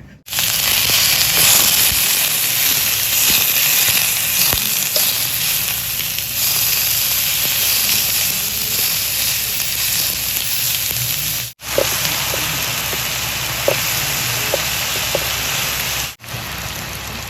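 Cucumber pieces frying in hot oil: a loud, steady sizzle with an occasional small pop. The sizzle cuts out for an instant twice.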